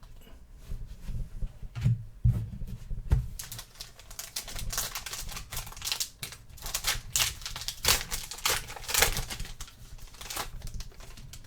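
Trading cards and their pack wrapper being handled: a run of crinkling, tearing rustles and quick clicks of cards sliding and snapping against one another.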